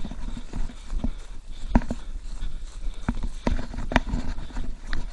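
Running footsteps of a group of people jogging on a dirt forest trail. Uneven thuds of feet striking the ground come about once or twice a second, over the rumble of a handheld camera being jostled while running.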